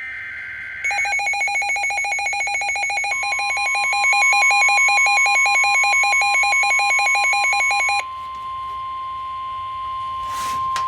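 Emergency Alert System warning tones from a weather radio. It begins with the tail of the screeching SAME digital header burst. Then comes a fast warbling electronic alarm for about seven seconds, joined about three seconds in by the steady single-pitch NOAA Weather Radio warning tone, which continues alone after the warble stops. There is a brief crackle of static near the end.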